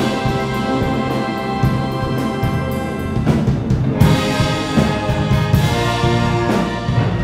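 Symphonic wind band playing held, full chords on brass, saxophones and woodwinds, with a fresh chord entering about four seconds in.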